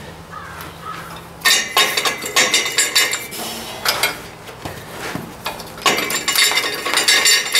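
Steel muffler being forced and twisted onto a Ford 800 tractor's exhaust pipe, clanking and scraping metal on metal. It comes in repeated bursts, starting about a second and a half in.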